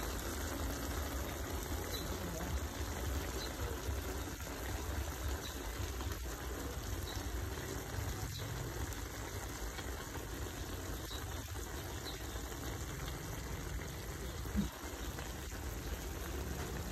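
A big pan of chopped duck and herbs cooking in its juices, bubbling and sizzling steadily, with a single brief knock near the end.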